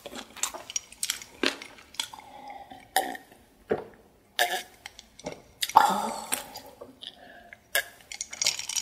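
Close-miked eating and drinking sounds: chewing a mouthful, then gulps from a glass mug. They come as a string of separate wet mouth clicks and swallows, with a short throaty sound about six seconds in.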